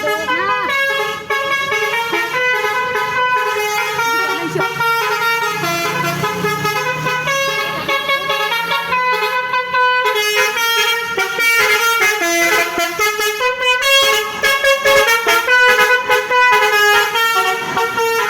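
Basuri "telolet" musical air horn on a KNF Trans bus, playing a fast melody of short, changing horn notes with no pause.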